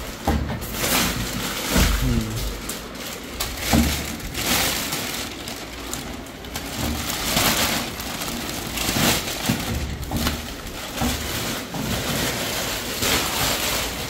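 Plastic packaging crinkling and rustling in irregular bursts as a new microwave oven is handled and unwrapped, with a few low thumps from the oven being moved.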